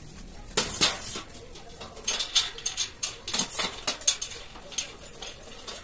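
Steel shelf-rack frame parts clicking and rattling against each other as they are handled and fitted together, in a quick irregular series of sharp clicks.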